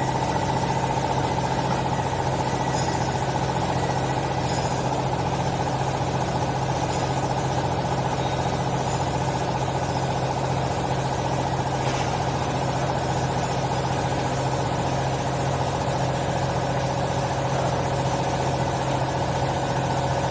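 Hydraulic pump motor of an automatic wool baler running under load with a steady hum while the press works, then cutting off.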